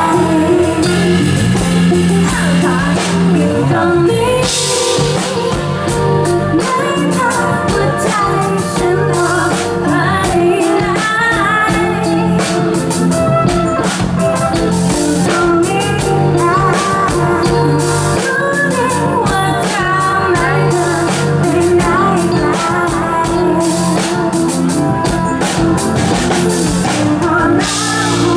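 Live pop band music: keyboard, electric guitar and drum kit playing steadily.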